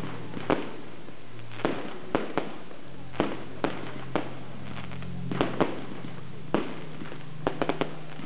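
Fireworks display: aerial shells bursting overhead with a dozen or so sharp bangs at irregular intervals, then a quick run of four reports close together near the end.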